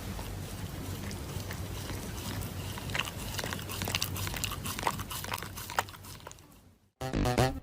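Scattered sharp clicks and crunches over a steady hiss, fading out about six and a half seconds in; electronic music with a strong beat starts just before the end.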